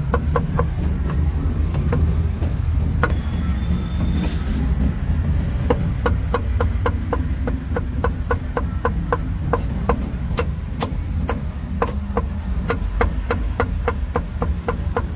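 Cleaver chopping on a wooden block in quick, even strokes, about four a second, with a short pause now and then, over a steady low rumble.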